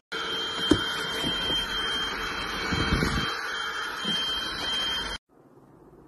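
Cordless stick vacuum running, a steady whine over a rushing hiss, with a few low knocks as the floor head is pushed over a dusty concrete floor. It stops abruptly about five seconds in.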